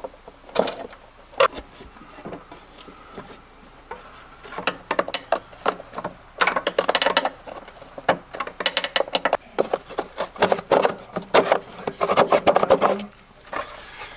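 Hand tools clicking and rattling against a lawn mower's screws and plastic belt guard as the guard is unscrewed and worked loose, in several busy bursts of clicks with short quieter gaps.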